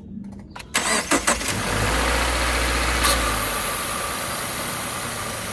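2014 Subaru Forester's flat-four engine cranked by the starter and catching about a second and a half in. It runs at a raised speed for a couple of seconds, then settles into a steady idle with its freshly fitted serpentine belt turning.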